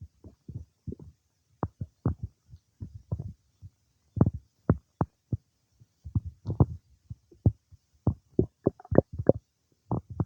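Stomach and bowel gurgling while a meal of cake is digested: a fast, irregular run of short pops and squelches, some louder than others.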